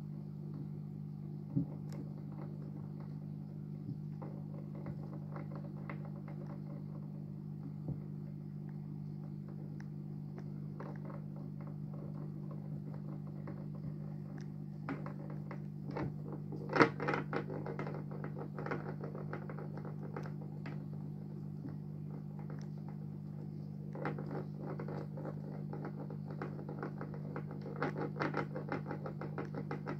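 A yellow-bellied slider turtle pushing a smooth stone around its aquarium, the stone clicking and scraping against the rocks in bursts about halfway through and again near the end, with one sharp knock about halfway. Under it runs the steady low hum of the tank's filter.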